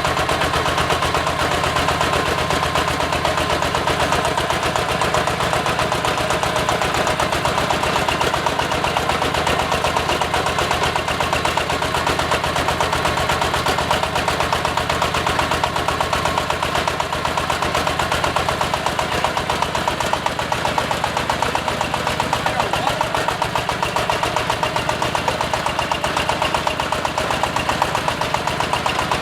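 Diesel engine of a hydraulic water-well drilling rig running steadily under work, a loud, fast, even clatter that does not let up.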